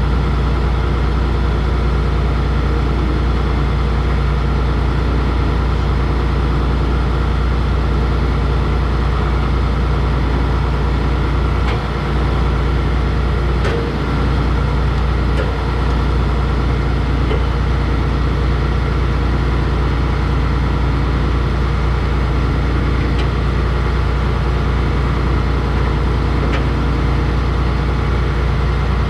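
Case 2144 combine's diesel engine idling steadily, a constant low hum, with a few faint knocks about halfway through.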